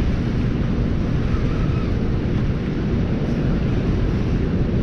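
Steady rushing of a fast, muddy river's whitewater rapids, mixed with wind buffeting the microphone.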